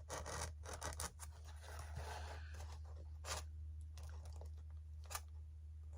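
Screwdriver blade scraping and crunching in a glued seam of a foam model wing, working out dried glue. The scratching is dense for the first half, then gives way to two single sharp clicks, over a steady low hum.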